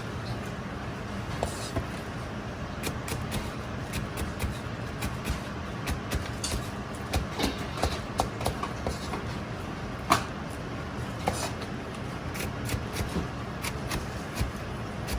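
Commercial kitchen work: a steady low hum under scattered light clicks and knocks, with one sharper knock about ten seconds in.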